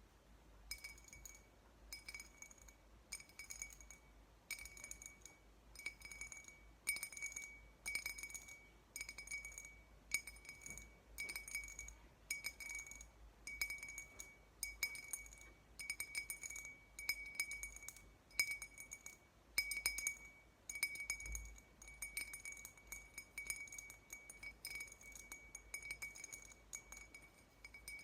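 Repeated tapping on glassware, each tap ringing out at the same clear pitch, about one or two taps a second.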